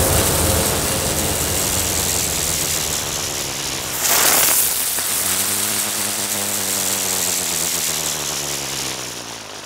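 Sound design for an animated channel logo: a low rumbling drone under a rushing noise, with a whoosh hit about four seconds in, then a low steady hum that fades out near the end.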